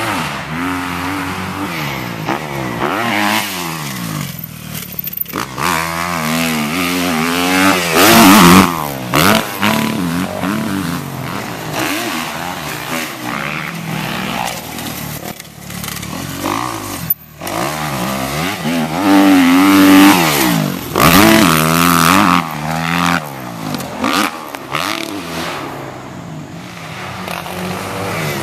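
2012 Kawasaki KX250F single-cylinder four-stroke dirt bike engine revving up and down as it is ridden around a motocross track, pitch rising and falling with throttle and gear changes over the jumps. It is loudest as the bike passes close, about eight seconds in and again about twenty seconds in.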